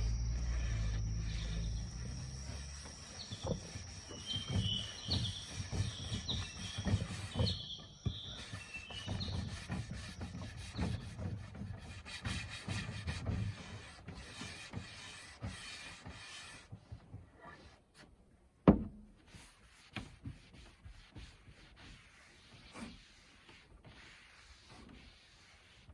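Repeated short rubbing strokes on a surface, then quieter handling noises and a single sharp knock about two-thirds of the way through.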